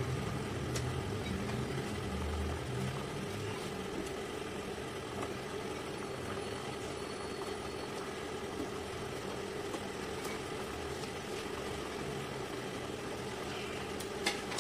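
Steady hum and bubbling of a curry boiling in a kadai on a gas stove, with a low rumble in the first few seconds and a few faint clicks as fried fish pieces are added.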